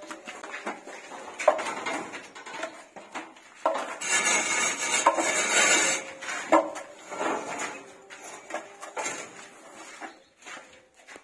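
Metal plastering tools scraping and clinking on wet wall putty: a putty blade and an aluminium straightedge drawn across a freshly sprayed coat to level it. A louder stretch of scraping comes midway, for about two seconds.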